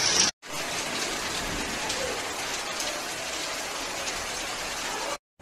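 Heavy rain pouring down steadily, an even hiss that starts after a short break and cuts off abruptly near the end.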